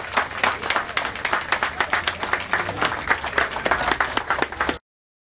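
A crowd applauding with dense, steady clapping that cuts off suddenly near the end.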